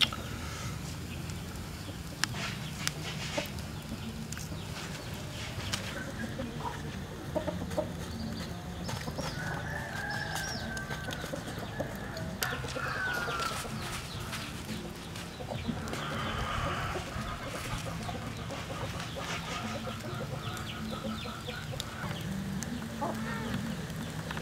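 Chickens clucking and calling now and then over steady yard ambience, with a few sharp clicks in the first seconds.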